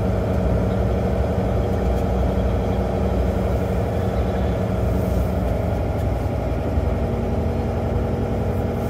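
Volvo semi truck's diesel engine running steadily, heard from inside the cab as the truck rolls slowly across a lot.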